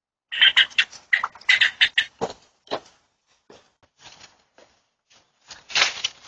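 A quick run of sharp chirping animal calls, about eight in the first two seconds, then sparser, fainter ones, and a longer, harsher call near the end.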